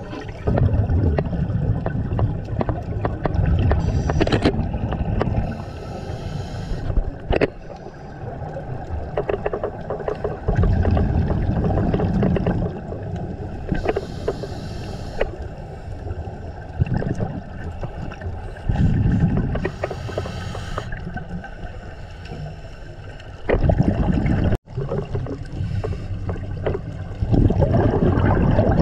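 Scuba divers breathing through regulators underwater: a short hiss on each inhale, then a long, low rumble of exhaled bubbles, repeating every several seconds.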